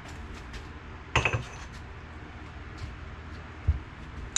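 Metal hand tools clinking briefly on a workbench about a second in, then a soft thump near the end.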